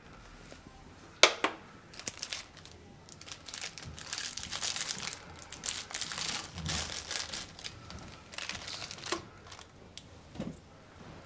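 Cellophane snack-packet wrapper crinkling as it is handled, in several bouts, with one sharp tap about a second in.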